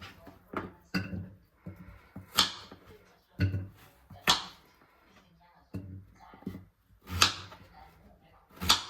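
Irregular kitchen clatter: about eight separate knocks and bangs of things being handled and set down, some sharp and bright, some dull thuds.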